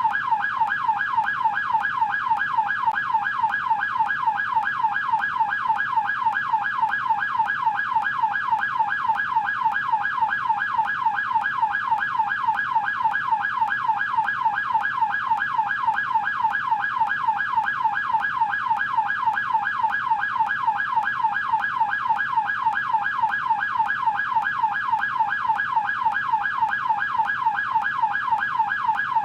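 American police car siren in yelp mode: a loud, rapid wail sweeping up and down in pitch about three times a second, unbroken and steady.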